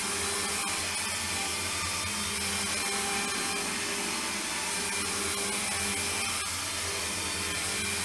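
iRobot Roomba 770 robot vacuum running on a hardwood floor: a steady whir of its motors and brushes, with a couple of faint clicks.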